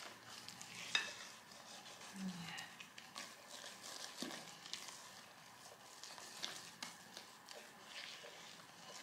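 Faint sounds of soft potato-and-flour dough being mixed and squeezed by hand in a glass bowl, with scattered light clicks, the sharpest about a second in.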